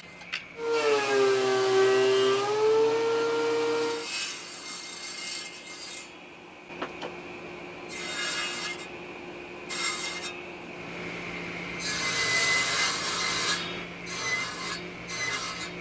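Table saw ripping a thick glued-up hardwood beam, the blade's whine sagging in pitch as it bites into the wood and then rising again as the cut finishes. Several shorter table-saw cuts follow in the second half.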